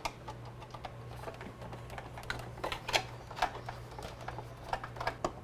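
Small Phillips screwdriver turning a screw out of a Keurig Mini coffee maker's plastic housing: a run of small irregular clicks and creaks, over a steady low hum.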